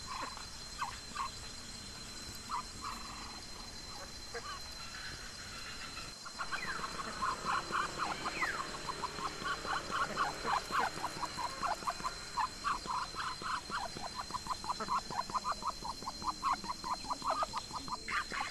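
Ducks quacking: a few scattered short calls, then from about six seconds in a fast, steady run of short quacks, several a second.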